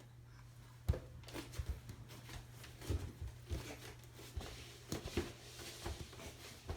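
Roomba robot vacuum carrying a child: a steady low hum with irregular knocks and rustles starting about a second in.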